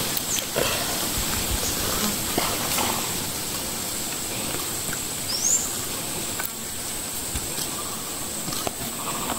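Outdoor ambience with a steady high-pitched insect drone, a few faint clicks, and one short rising chirp about five and a half seconds in.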